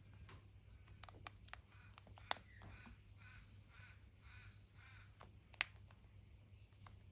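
Australian magpie giving a faint run of about eight short harsh calls, about three a second, with several sharp clicks, the loudest about two seconds in and again near the end.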